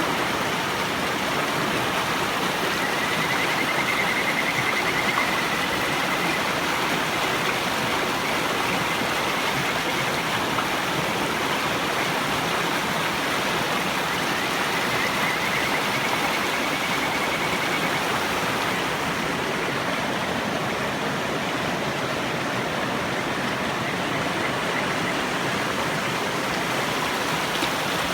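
A mountain river rushing steadily, with kajika frogs (Buergeria buergeri) trilling faintly over it: a long warbling high call about three seconds in, another about fifteen seconds in, and a weaker one near the end.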